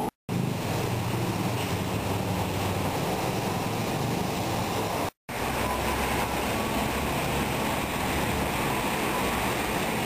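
Steady city street noise, a low traffic rumble, broken by two brief dropouts, just after the start and about halfway.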